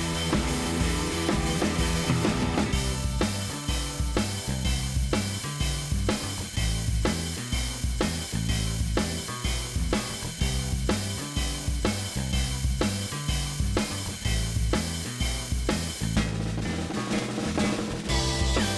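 Background music with a steady drum-kit beat: bass drum and snare under sustained instrument notes.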